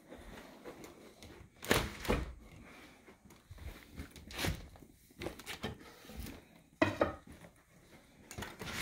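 A handful of dull knocks and thumps at uneven intervals, the loudest two close together a couple of seconds in, over a faint room hush.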